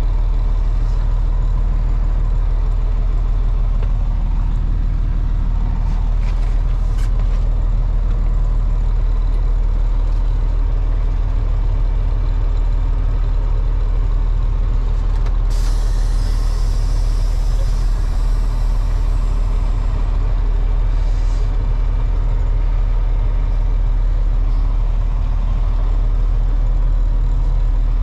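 Freightliner semi's Cummins ISM diesel engine running steadily, heard from inside the cab. About halfway through, a hiss of air from the truck's air system cuts in suddenly and fades over several seconds, followed by a shorter hiss.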